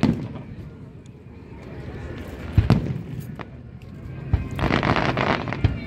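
Aerial fireworks shells bursting: three sharp booms a second or two apart, then about a second of dense crackling near the end, closed by another boom.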